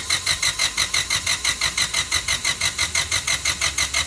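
Starter motor cranking the Honda Civic's turbocharged B-series engine, which does not catch. It gives an even, fast chugging rhythm with a steady whine over it.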